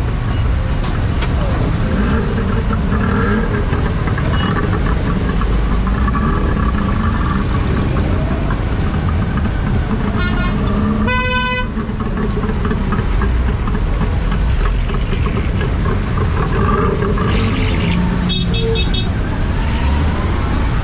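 Dense, slow-moving road traffic: vehicle engines rumbling close by in a jam, with horns honking. A short horn toot about ten seconds in is followed by a longer blast, and another horn sounds near the end.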